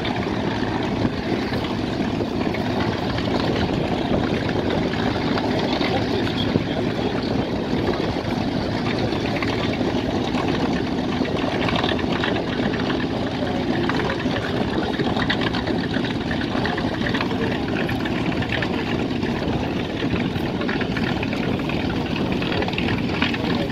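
Piston engines of propeller-driven fighter aircraft running at a steady idle, a continuous even drone.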